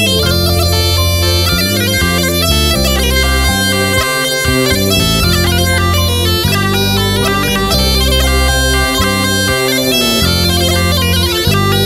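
Background music on tulum, the Black Sea bagpipe, playing a quick, busy melody over a held drone and a changing bass line.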